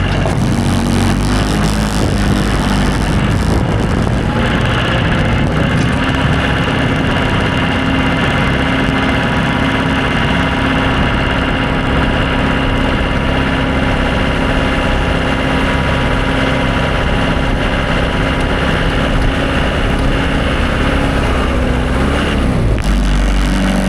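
Tractor engine running steadily while plowing snow. It picks up in pitch a few seconds in, holds there, and drops off near the end.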